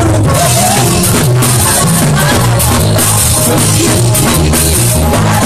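Live praise-and-worship band playing loudly through a PA: drum kit, bass guitar and keyboard in a steady beat, with a singer's voice over them.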